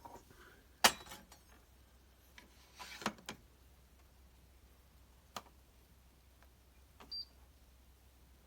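A few scattered sharp clicks and knocks, the loudest about a second in, a short cluster around three seconds in, and a brief high beep near the end.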